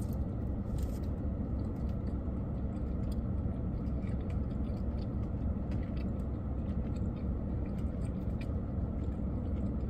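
Steady low rumble of a parked car running, heard inside the cabin, with soft chewing of bread over it.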